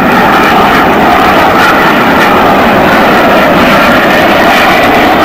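Aermacchi MB-339 jet of the Frecce Tricolori flying past, its Rolls-Royce Viper turbojet running loud and steady.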